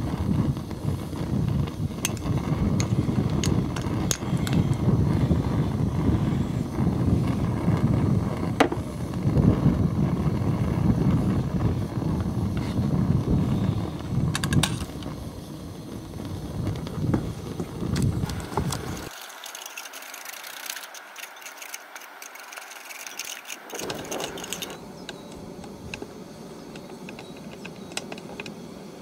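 Wind buffeting the microphone, a heavy uneven rumble, with a few sharp clicks of a metal spoon against the saucepan and ramekins. About two-thirds of the way through, the rumble cuts off suddenly and a quieter, thinner background remains.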